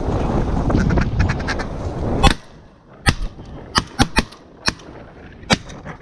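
Wind buffeting the microphone for the first two seconds, then dropping away, followed by a string of short, sharp duck quacks.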